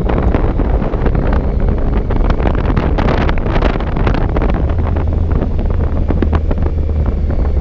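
Heavy wind buffeting on the microphone of a moving motorcycle, over a steady low engine drone.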